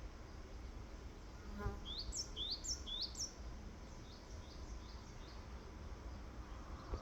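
A bird singing short, quickly rising whistled notes, fainter ones repeated throughout and three louder ones in a row about two to three seconds in. A bee buzzes past briefly about a second and a half in, over faint outdoor background.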